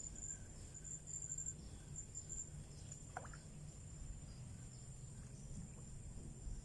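Insects trilling in a steady high-pitched drone that pulses now and then, over a low hum, with one short chirp about three seconds in.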